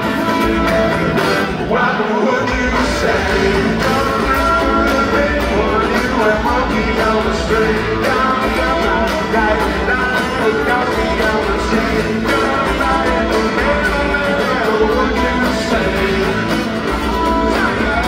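Rock band playing live: acoustic guitar, drums and keyboards with a lead voice singing, loud and continuous.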